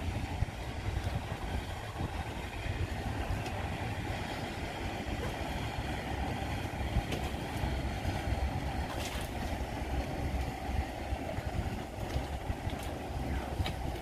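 Boat motor running steadily on open water, a continuous low rumble with water and wind noise.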